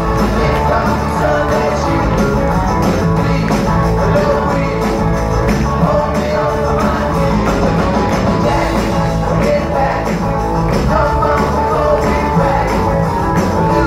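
Live rock band playing on stage: a lead singer over drums and acoustic and electric guitars, heard from the audience.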